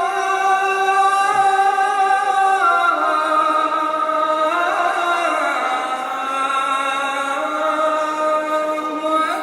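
Muslim call to prayer (adhan), a single voice chanting long held notes that step down and waver between pitches.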